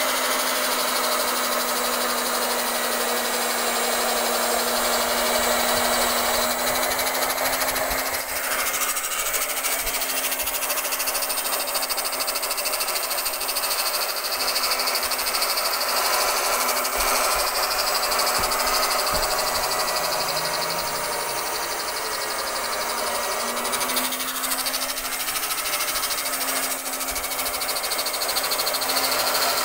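Electric round-knife cloth cutter running steadily, its spinning blade cutting through layered fabric: a constant motor hum with a hiss, the hum's pitch shifting slightly as the load changes.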